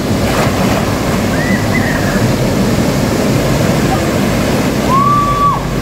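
Steady rush of a small waterfall pouring over a river weir into a pool, with a splash just after the start as a person dives into the water.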